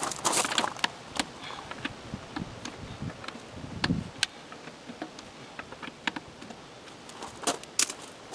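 Scattered light clicks and clinks, like small metal objects being handled, with a dull thump about four seconds in.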